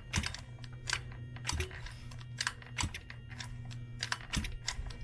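About a dozen sharp, irregular clicks and taps over a steady low hum, from hands handling a gas RC monster truck while readying it to start.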